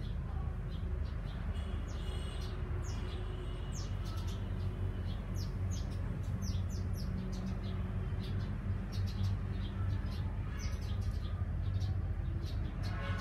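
Birds chirping in many short, high, scattered calls, over a steady low rumble.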